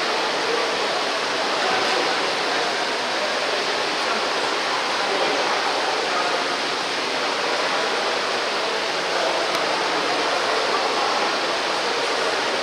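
Steady wash of splashing water from water polo players swimming and fighting for the ball, with indistinct voices mixed in.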